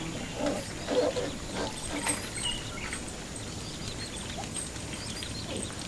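Scattered short bird chirps with a few brief knocks, over a steady faint background.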